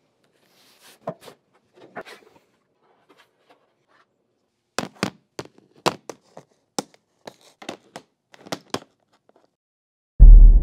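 Unboxing: a cardboard box and its packed pieces handled and set down, giving scattered clicks and knocks with faint crinkling, then a quicker run of sharp taps in the middle. A sudden loud low rumble starts near the end.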